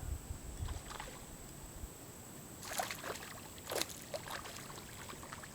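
Water splashing a few short times in a creek, over a low rumble in the first two seconds.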